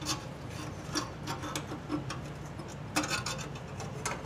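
Nut driver loosening the mounting screw of a furnace hot surface igniter: a scatter of small irregular metallic clicks and light scrapes, over a low steady hum.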